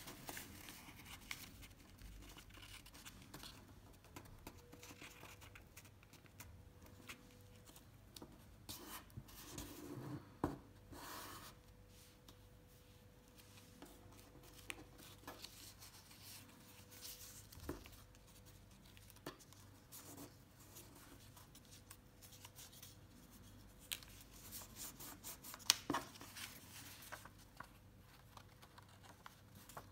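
A sheet of paper being folded and creased by hand: soft rustling with sharp crinkles, louder around ten seconds in and again near the end. A faint steady hum sets in a few seconds in.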